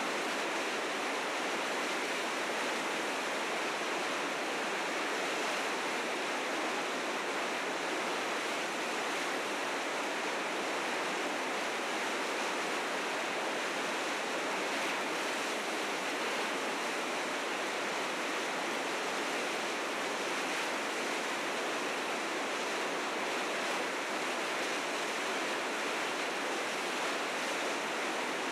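River rapids rushing steadily, with meltwater from spring snow running in fierce currents; an even, unbroken rush of water.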